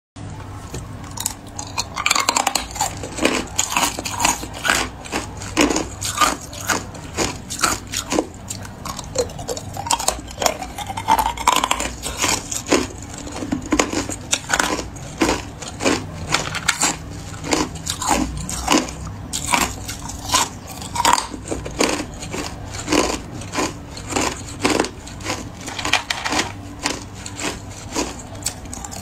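Hard clear ice cubes being bitten and chewed: a steady run of sharp crunches and cracks, several a second.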